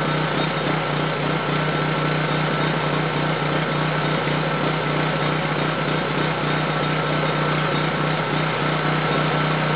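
Small portable generator engine running at a steady speed, a constant drone with a steady hum and a thin higher whine.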